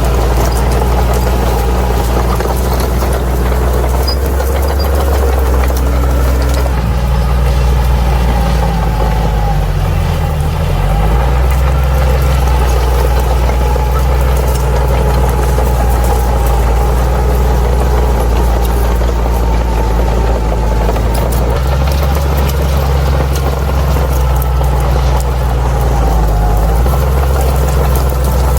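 Bulldozer's heavy diesel engine running steadily. Its pitch dips and recovers about ten seconds in, and changes again a little after twenty seconds as the load shifts.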